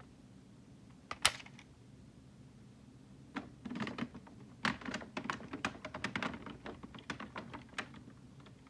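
Plastic clicks and clacks of a Kamen Rider roleplay toy being handled: the Plosion Rage Raise Buckle being fitted to the toy Desire Driver belt. There is one sharp click about a second in, then a quick run of small clicks and rattles from about three and a half seconds in until near the end.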